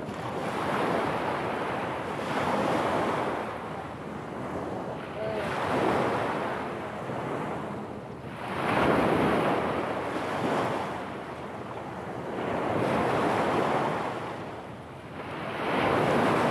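Sea waves breaking and washing up a pebble beach, swelling and fading every few seconds, the loudest surge about halfway through.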